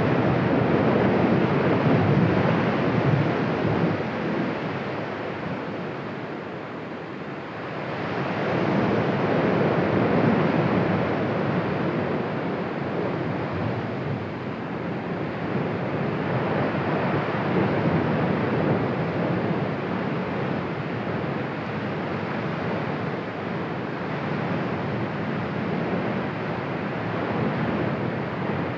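Cumbre Vieja volcano erupting: a continuous rushing noise from the vent that swells and eases every several seconds, weakest about seven seconds in.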